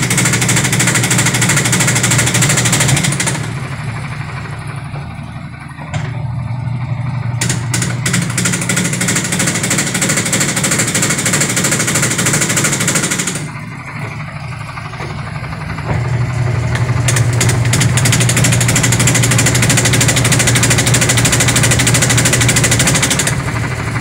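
Sharp top-loading automatic washing machine spinning with an empty tub: a steady motor hum under loud rattling and knocking as the wobbling tub hits the side of the cabinet. It eases off twice for a couple of seconds and then builds again. The tub is badly out of balance, a sign of a defective tub assembly.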